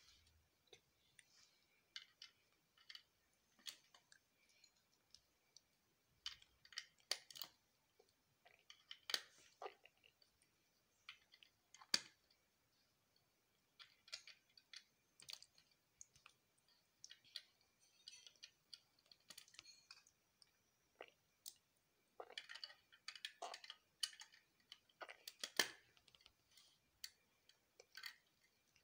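LEGO Classic bricks being picked up and pressed together: scattered light plastic clicks and rattles, with a quicker run of clicks about three quarters of the way through.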